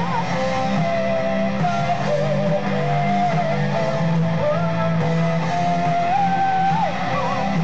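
Live rock band playing loud: electric guitar, drums and keyboards, with a melody of long held notes sliding from pitch to pitch above.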